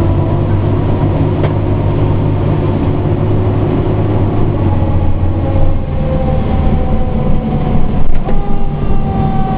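Pierce Enforcer fire engine running under way, a steady heavy engine drone whose note drops a little about halfway through. In the second half a drawn-out tone slowly falls in pitch over it.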